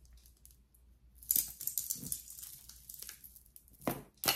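Costume jewelry and plastic bags being handled on a table: a hissy rustle starts about a second in, then two sharp clicks come near the end.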